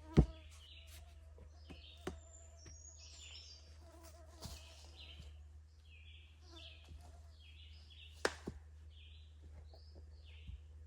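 Songbirds chirping in short repeated notes throughout, with a sharp knock just after the start and a few lighter knocks later, typical of carpentry work on a building frame.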